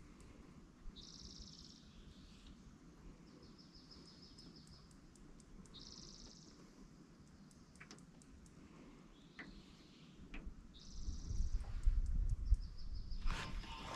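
A songbird singing repeatedly, with short high buzzy phrases about half a second long alternating with quick high trills. From about eleven seconds in a low rumble comes up, and there is a brief clatter near the end.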